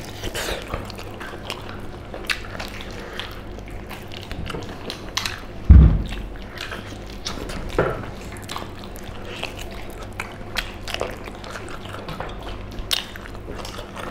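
Chewing and gnawing of people eating pork leg curry by hand, with scattered small wet clicks and one low thump about six seconds in.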